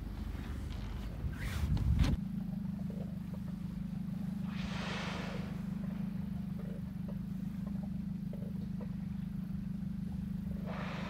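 Two whale blows, each a breathy rush of exhaled air lasting about a second, some six seconds apart, over the steady low hum of a boat's motor. A couple of sharp knocks sound about two seconds in.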